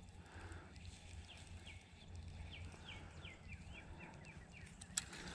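A bird calling faintly: a run of about ten short whistled notes, each sliding downward, coming a few to the second. A single sharp click near the end.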